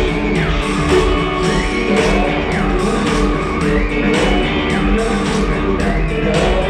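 Live rock band playing an instrumental passage: a high line slides up and down in pitch about once a second over a steady beat of bass and drums.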